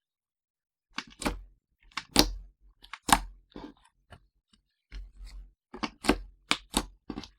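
Clear slime being squeezed and kneaded by hand while pearl pigment is mixed in, making a string of sharp, irregular pops and clicks that start about a second in.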